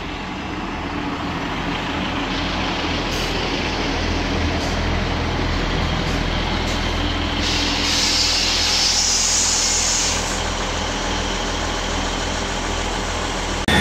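A Class 158 diesel multiple unit's underfloor engines running as the train draws into the platform and slows, growing gradually louder. A hiss of air, typical of the air brakes being applied, rises about seven seconds in and stops a couple of seconds later.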